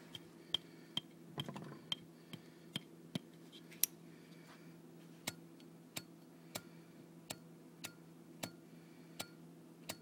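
Zippo lighter's flint wheel struck again and again, sharp clicks about one every half to three-quarters of a second, the lighter not catching: its wick, fuelled with isopropyl alcohol, has dried out.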